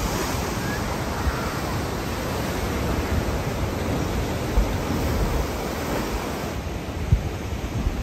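Ocean surf breaking and washing on a rocky shore, a steady rushing noise, with wind buffeting the microphone in a few low bumps near the end.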